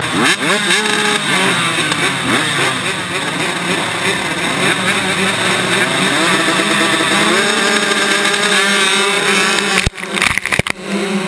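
A field of two-stroke motocross bikes revving hard together on the start line, engines held high with pitch rising and wavering. About ten seconds in come a few sharp knocks and crackles as dirt thrown up by the launching bikes hits the microphone.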